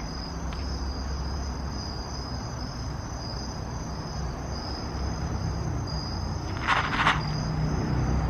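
Crickets chirping in a continuous high trill, with two short scuffs near the end.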